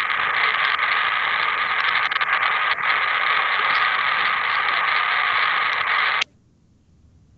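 Unwanted noise on a ham radio receiver: a loud, steady static hiss with a steady tone running through it and a few faint clicks. It cuts off suddenly about six seconds in.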